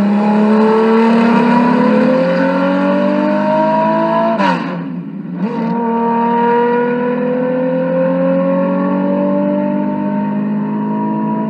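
Racing car engine at high revs, its pitch climbing slowly and steadily as the car accelerates. About four and a half seconds in there is a brief drop in pitch, then it picks up and climbs again.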